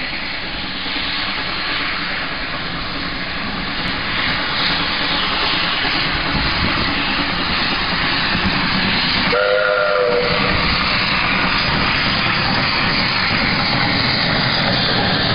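Steam locomotive approaching and passing, a steady rushing noise that grows louder as it nears. About nine seconds in, the locomotive's steam whistle sounds one short blast of several notes at once.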